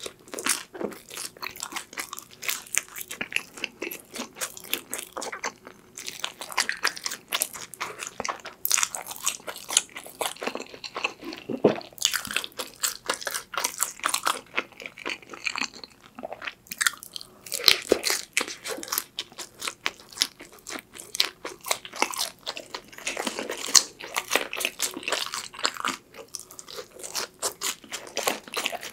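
Close-miked biting and chewing of Chicago-style pepperoni pizza: a dense, irregular run of crisp crunches and mouth sounds.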